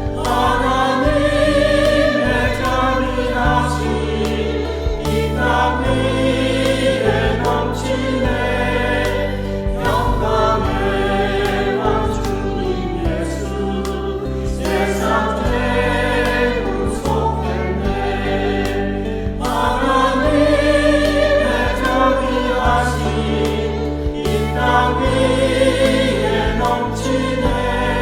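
Church choir singing a hymn in parts over instrumental accompaniment, with held low bass notes that shift every second or two under the voices.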